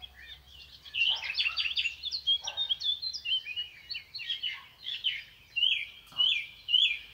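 Songbirds singing, a busy run of chirps and quick whistled notes, with a few repeated falling notes near the end.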